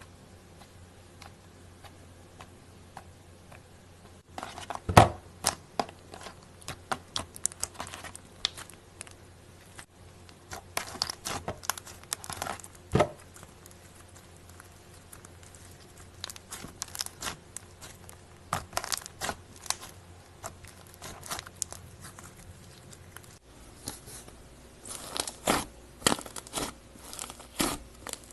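Slime being squeezed and stretched by hand, crackling and popping in irregular clusters of sharp clicks, starting about four seconds in.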